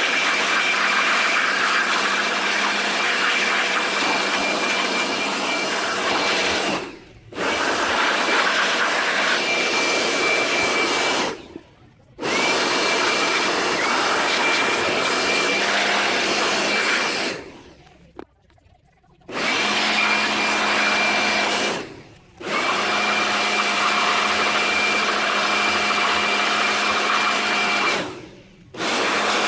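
An electric motor-driven cleaning tool running in spells of a few seconds with a steady whine, cut off five times and winding back up each time it is switched on again.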